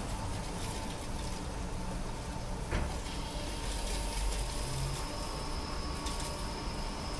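Automatic rollover car wash machine running as its brushes start up: a steady mechanical hum with a single click about three seconds in and a thin high whine coming in about four seconds in.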